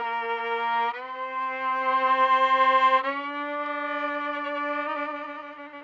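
Solo violin playing slow, long bowed notes with vibrato, each step a little higher in pitch, then moving into quicker notes near the end.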